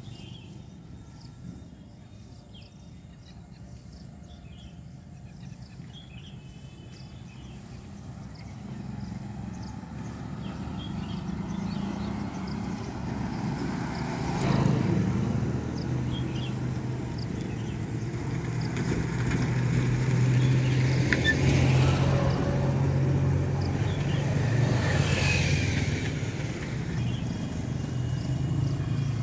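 A motor vehicle's engine running, a low steady hum that grows louder about a third of the way in and stays loud with a few swells, as of traffic passing.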